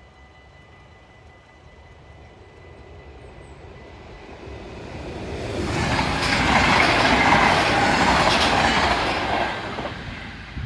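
Double-deck electric passenger train passing close by at a level crossing: its rumble and wheel noise swell up over several seconds, stay loud for about three seconds with a few sharp wheel clacks, then fade as it moves off. A steady high ringing tone from the crossing's warning bell runs underneath until the train has gone.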